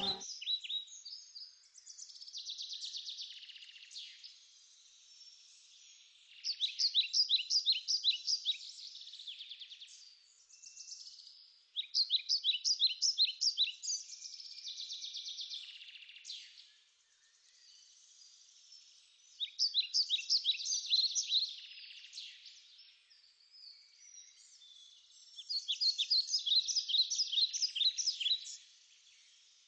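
Birdsong: loud bouts of rapid, evenly repeated high chirps lasting two to three seconds each, coming back about every six seconds, with softer warbling calls between them.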